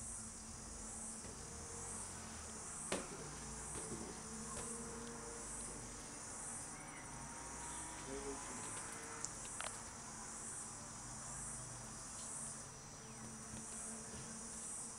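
Faint outdoor insect chorus: a high buzzing that swells and fades about once a second, with a couple of soft clicks.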